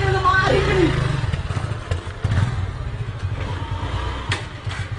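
Motorcycle engine running with a low pulsing rumble that fades away, with a couple of sharp knocks near the end.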